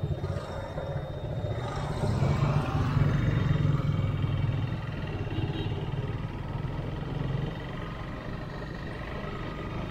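Motorcycle engine running while riding, with wind and road noise; the engine note grows louder for a few seconds from about two seconds in, then eases back to a steady cruise.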